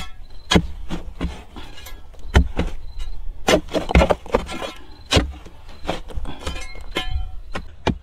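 Steel digging bar jabbing and prying at rock: repeated sharp metallic knocks and clinks at irregular intervals, about one a second, as the bar is driven into a crack behind a large stone slab.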